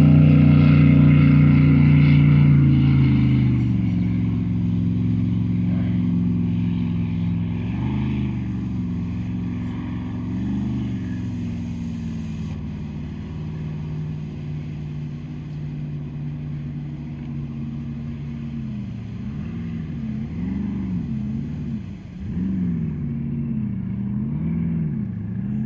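A motor running, loudest at first, its pitch later rising and falling in slow waves about once a second.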